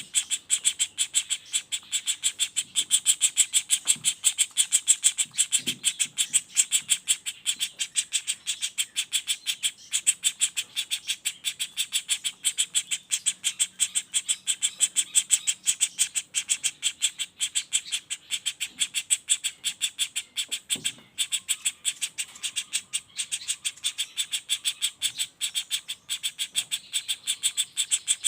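Juvenile pelatuk bawang woodpecker (flameback) giving its rapid rolling call: a fast, unbroken series of sharp, high-pitched notes, about eight a second.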